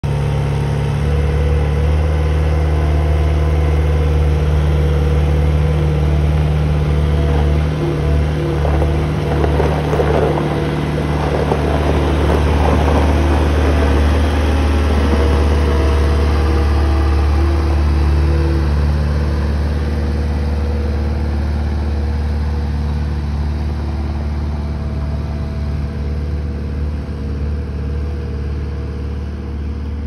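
Caterpillar 216 skid steer's diesel engine running steadily close by, with a spell of rattling and clanking from about eight to thirteen seconds in. The engine then grows gradually fainter as the machine drives away.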